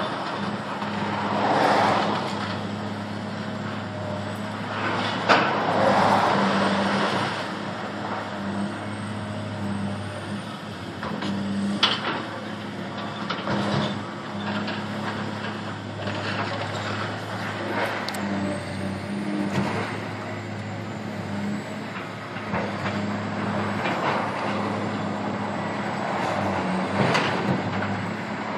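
Demolition by a Caterpillar 365BL excavator: a diesel engine drones steadily, and rubble crashes and crunches loudly several times as the building is torn apart.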